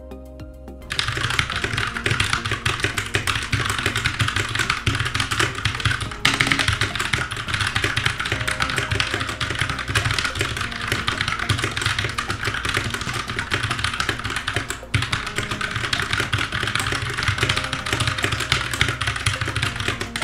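Very fast touch-typing on a computer keyboard: a dense, continuous stream of key clicks starting about a second in, with two brief lulls, at a speed-test pace of about 134 words per minute.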